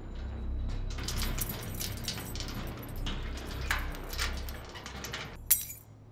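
Keys and a chain rattling against the bars of a chained metal gate as the padlock is worked, ending in a single sharp clatter about five and a half seconds in as the keys drop onto the concrete floor. A low steady hum runs underneath.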